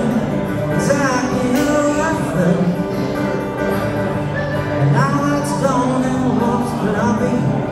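Live acoustic guitar with a man singing over it: a solo singer-guitarist performance.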